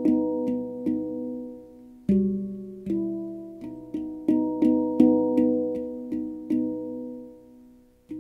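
Pantheon Steel Halo handpan (2015, Onoleo tuning) played by hand: a melodic phrase of single struck notes, each ringing and fading. A deep note sounds about two seconds in, notes follow about twice a second in the middle, and a last note is left to ring out near the end.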